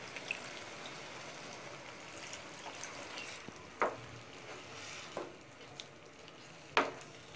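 Chicken masala gravy sizzling quietly in a black nonstick pan as a little water is stirred in with a flat spatula. Three short spatula scrapes against the pan stand out, at about four seconds, five seconds and, loudest, near seven seconds.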